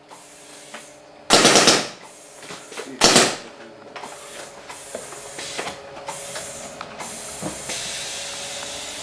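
Pneumatic paintball markers on a turret firing two short rapid bursts, about a second and three seconds in, after the hoppers have been emptied of paint. Small clicks and knocks follow, and a steady hiss sets in near the end.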